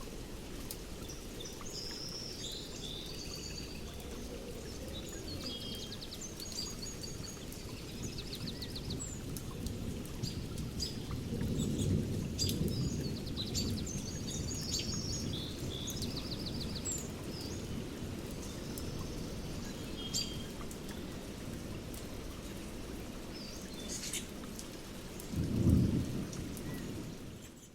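Thunderstorm recording: steady rain with thunder rumbling low, swelling about halfway and loudest in a short rumble near the end, while songbirds chirp over it. The sound fades out at the very end.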